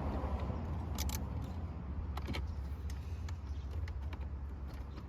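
A few sharp clicks and taps of hand tools and plastic trim being worked loose, over a steady low hum.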